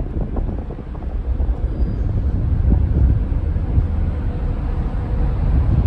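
Low, steady rumble of a car ferry under way, heard from its open deck, with wind buffeting the microphone.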